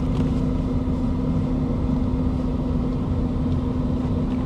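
Steady hum of a stationary car, idling with its air conditioning running, heard from inside the closed cabin: an even low rumble with one constant droning tone that does not change.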